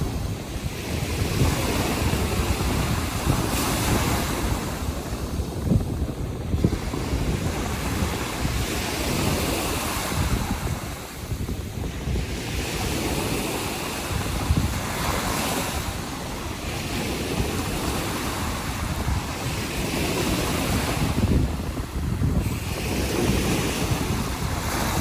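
Baltic Sea surf breaking and washing on the shore, a steady rushing wash that swells and eases every few seconds, with wind buffeting the microphone.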